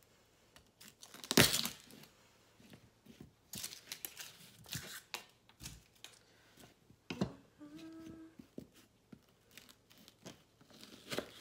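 A chef's knife cutting into an onion on a wooden cutting board: one loud knock of the blade on the board about a second in, then the papery onion skin crinkling and tearing as it is peeled off, with scattered knife taps on the board.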